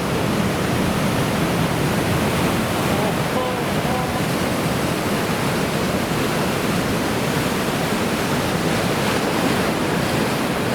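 Heavy typhoon-swell surf breaking, a loud, steady wash of noise with wind on the microphone.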